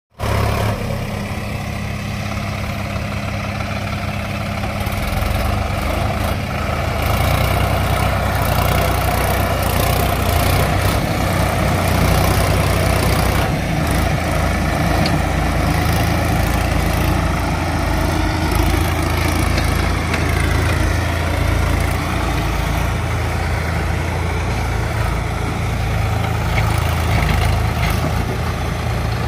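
Sonalika DI 50 Sikander tractor's diesel engine working under heavy load, pulling a fully loaded trolley of earth. It runs steadily and grows louder about five to eight seconds in.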